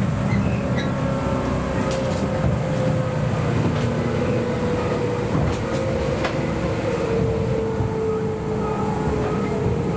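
Cabin running noise of a JNR 117 series electric motor car slowing into a station: a steady rumble of wheels and running gear, with a motor and gear whine that falls slowly in pitch as it brakes. A few sharp clicks come about 2, 4 and 6 seconds in.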